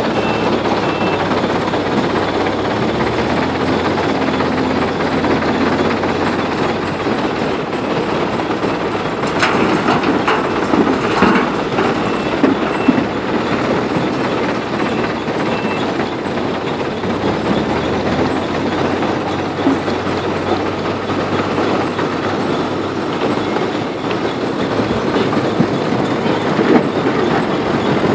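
Excavator's diesel engine running steadily under load, with a few sharp clanks and knocks about ten to thirteen seconds in, as earth and stone are loaded into a dump truck.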